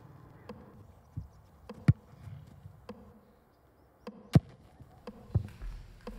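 A dozen or so sharp knocks and thuds at irregular intervals, the loudest about two and about four seconds in, over a faint background.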